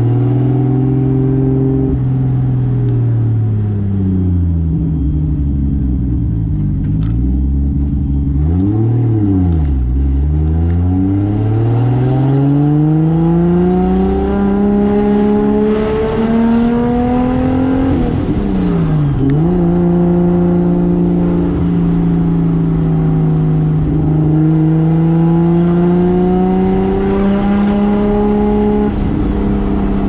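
Single-turbo 2JZ straight-six of a 1995 Toyota Soarer driving through the R154 manual gearbox, heard from inside the car. The revs fall at first, dip and recover about nine seconds in, then climb steadily. A quick drop and climb back about nineteen seconds in marks a gear change, and the revs rise again near the end.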